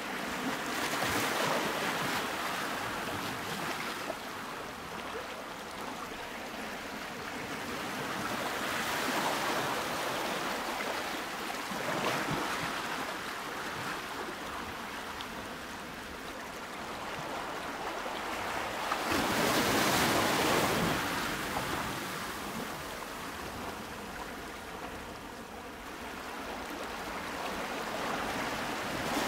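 Ocean surf, waves washing in as a steady hiss that swells and fades every few seconds, loudest about twenty seconds in.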